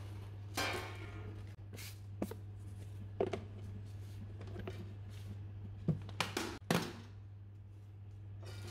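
Plastic clip-lock storage box full of LECA clay pebbles being handled, its lid pressed on and its latches snapped shut: a few separate knocks and clicks, with a quick run of sharp clicks a little after the middle.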